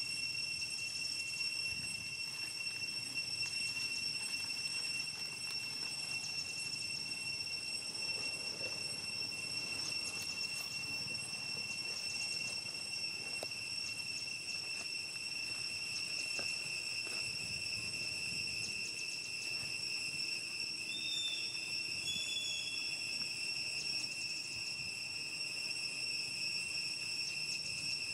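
Steady, high-pitched drone of insects, unbroken throughout. A few faint ticks and a brief high chirp sit just over halfway through.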